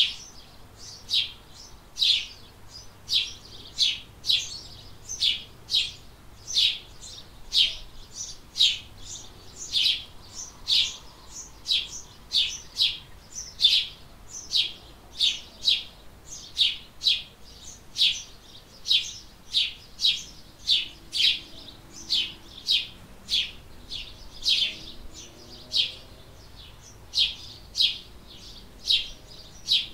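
House sparrow chirping a long, monotonous series of single cheeps, about two a second.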